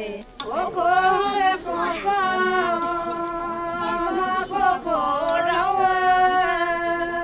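Miao women singing unaccompanied in the antiphonal song exchange (duige) of a traditional wedding, with long held notes that waver and glide. The singing breaks off briefly twice, once just after the start and once about two-thirds of the way through.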